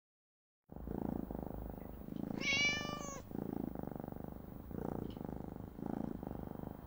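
A cat purring in slow, even swells, starting under a second in, with one meow about two and a half seconds in.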